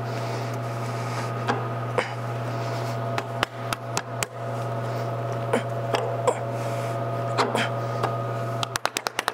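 Light metal clicks and taps from a Wilwood brake caliper and its pads being handled and fitted, over a steady hum. Near the end the hum cuts out and a fast, even run of ticks starts.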